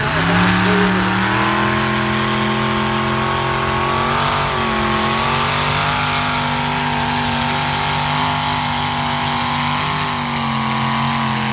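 Modified pulling tractor's engine at high revs, dragging a weight-transfer sled down the pull track. The pitch climbs in the first second or so, then holds steady under load, dipping slightly about four and a half seconds in.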